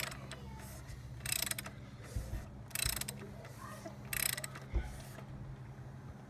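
Socket ratchet clicking in four short bursts about a second and a half apart, as it is swung back between strokes while loosening the plastic oil filter housing cap anti-clockwise with a cap-wrench socket.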